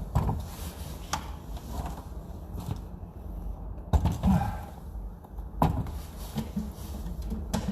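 Scattered knocks, clicks and thuds of things being handled and shifted to get at an electrical breaker box, with sharper knocks near the start, about a second in, near four seconds and near six seconds.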